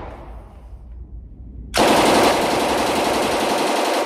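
Carl Gustaf m/45 "Swedish K" 9mm open-bolt submachine gun firing one sustained full-auto burst in an indoor range lane, starting a little under two seconds in and lasting just over two seconds before cutting off suddenly.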